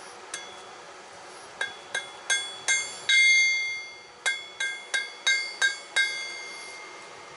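Hand hammer striking hot file steel on a steel anvil, forging a knife blade: about a dozen blows, each leaving a bright metallic ring. They come in two runs of roughly three a second, with a short pause in the middle after the loudest, longest-ringing blow about three seconds in.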